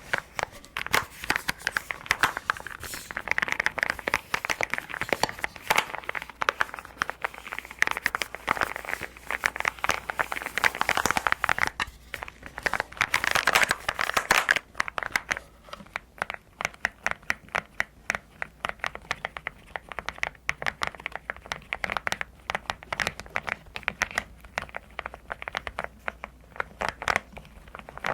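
Close-miked keyboard unboxing: dense, rapid clicking and crinkling of the keyboard and its packaging being handled. About halfway through it thins out to sparser, quieter clicks.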